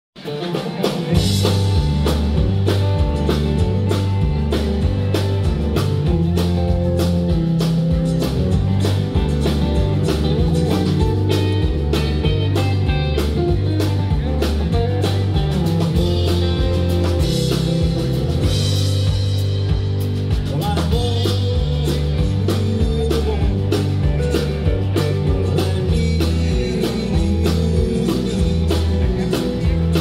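A live country-rock band playing with a steady drum-kit beat, electric and bass guitars, acoustic guitar, pedal steel and keyboard, kicking in just after the start.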